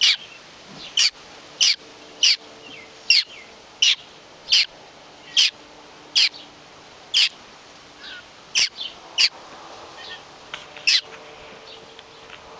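A hungry baby bird giving short, loud, high-pitched begging calls over and over, about one a second, spacing out toward the end.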